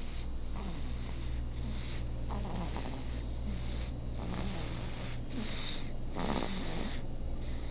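Steady rhythmic snoring, a noisy breath roughly every second.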